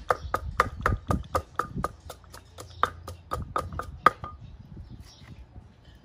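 Wooden pestle pounding garlic in a clay mortar: steady knocks about four a second, stopping about four seconds in.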